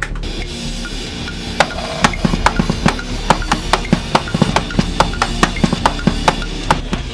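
Drum kit being played: a steady low tone first, then from about a second and a half in, sharp drum and cymbal hits about four times a second.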